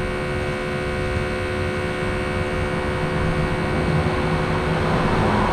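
Budget smoke leak tester's built-in air pump running with a steady hum. A hiss grows louder near the end.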